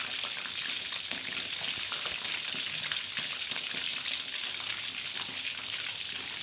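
Whole fish frying in hot oil in a wok: a steady sizzle with many small crackling pops.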